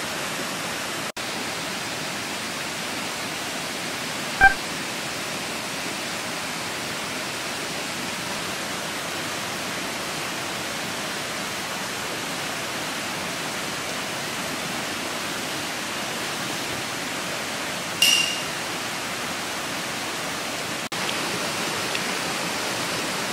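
Shrimp sizzling on a wire grill net over charcoal: a steady, even hiss, with a light click about four seconds in and a sharp tick about five seconds before the end.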